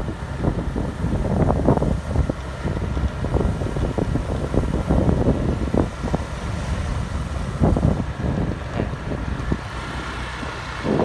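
Wind buffeting the microphone in uneven gusts while riding, over the running noise of the vehicle.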